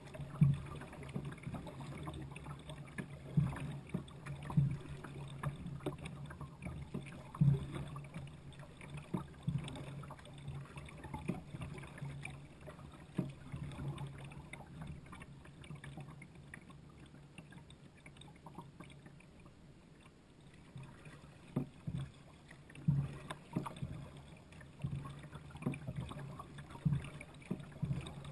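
Kayak paddle strokes: the paddle blades dipping and splashing alongside the hull, a stroke every one to two seconds. They stop for a few seconds past the middle while the kayak glides, then start again.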